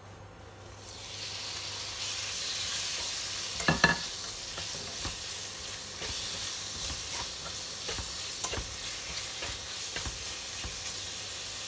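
Raw chicken strips sizzling as they go into a hot oiled non-stick pan, the sizzle building over the first two seconds and then holding steady. A loud clatter just under four seconds in, then scattered light taps and scrapes as the pieces are spread and turned in the pan.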